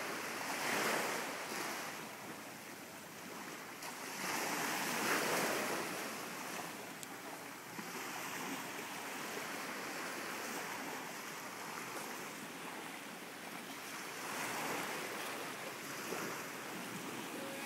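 Small waves washing onto a sandy beach, a steady surf hiss that swells twice in the first few seconds, with some wind noise on the microphone.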